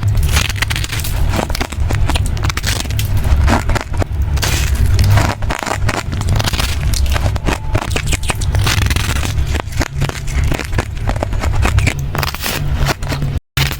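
Ice being chewed close to the microphone: a dense run of crunching and cracking as the pieces are bitten and ground between the teeth. The sound breaks off for a moment near the end.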